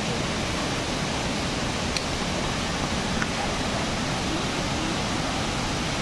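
Steady rush of falling water from the Jalagamparai waterfall, an even hiss that holds constant throughout.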